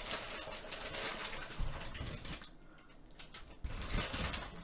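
Paper fast-food packaging being handled close to the microphone: rustling, with soft knocks about a second and a half in and again near the end.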